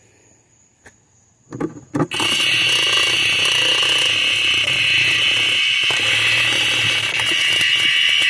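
Cicada giving a loud, steady buzz that starts abruptly about two seconds in, after a few faint knocks.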